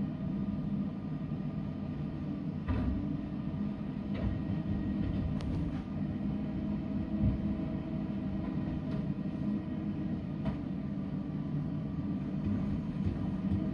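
Garbage truck engine running steadily with a low hum. Several sharp clanks and knocks come over it as the truck's cart tipper works a recycling cart.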